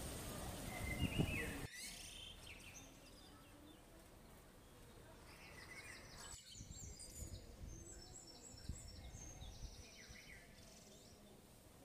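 Faint quiet-street ambience with birds chirping and giving short trills now and then. The background changes abruptly twice, about two seconds in and again about halfway.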